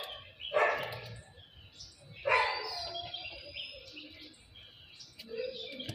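A two-day-old chick peeping, a few short calls with pauses between.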